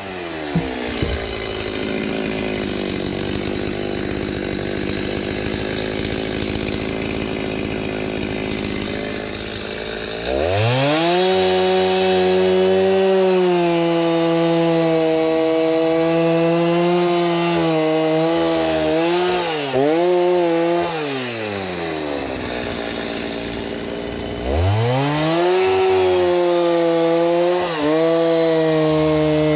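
Chainsaw idling, then revved up to high speed for about ten seconds with its pitch dipping and wavering, which is typical of the chain biting into a dry oak firewood log. It drops back to idle, then revs up again for a second cut near the end.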